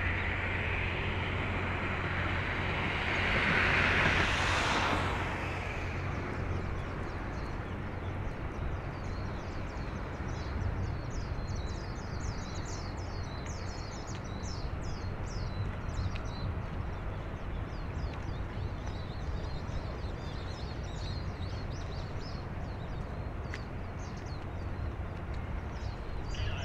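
Steady low drone of a large ship's engine, heard across open water. A vehicle passes close by about four seconds in, the loudest moment, and small birds chirp repeatedly through the rest.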